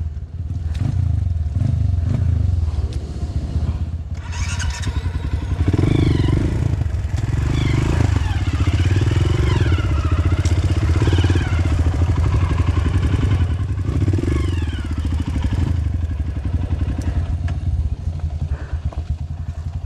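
Trail motorcycle engine running and being ridden, its pitch repeatedly rising and falling with the throttle, loudest between about four and sixteen seconds in.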